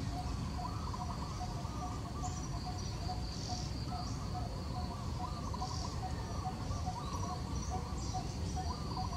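Outdoor insect and bird ambience: a steady high insect drone and a short note repeating about twice a second, with birds chirping on and off over a low rumble.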